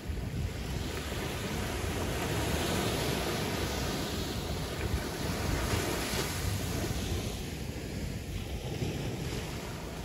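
Caribbean Sea surf washing in, a wash of water noise that swells in the middle and eases toward the end, with wind rumbling on the microphone.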